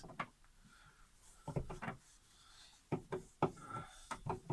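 Short, irregular rubbing and scraping strokes in a few separate clusters: smeared adhesive residue being rubbed and scraped off.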